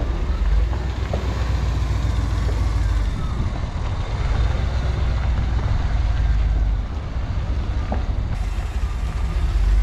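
Chevrolet C30 wrecker's engine running as the truck is driven slowly, a steady low rumble.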